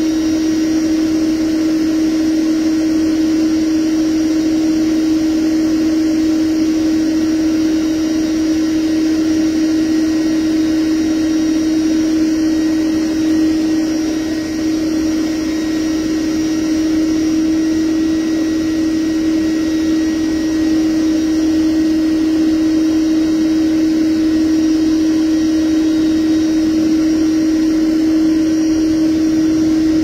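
Bee vacuum running steadily with a constant hum, sucking live honey bees off exposed comb through its hose.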